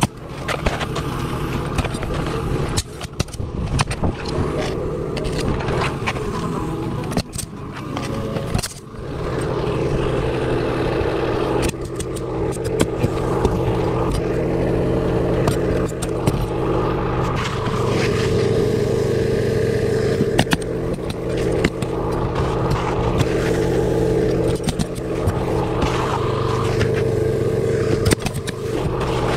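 Pneumatic coil roofing nailer shooting nails into asphalt shingles, heard as scattered sharp shots, with shingles scraping as they are handled. Under it runs a steady engine-like machine drone that grows louder about a third of the way in.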